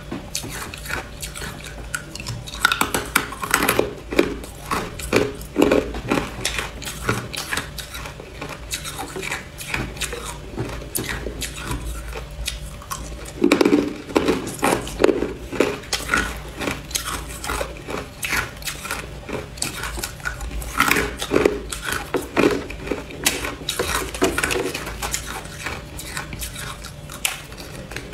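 Hard clear ice being bitten and chewed, a dense run of sharp cracks and crunches that comes in several louder bouts.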